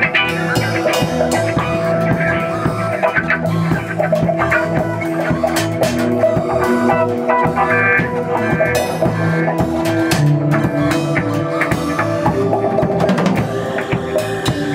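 Improvised instrumental rock jam: a drum kit playing busily, with electric guitar and bass over held drone tones.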